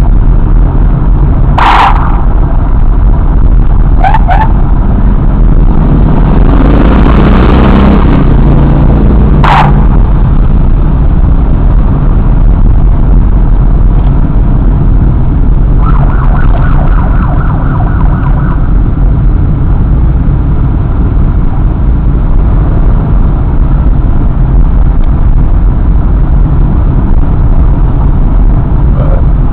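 Loud, steady wind rumble on the microphone and engine noise from riding at speed in a motorcycle group. A few short high chirps and, about sixteen seconds in, a couple of seconds of a rapid pulsing tone, typical of police escort sirens, cut through it.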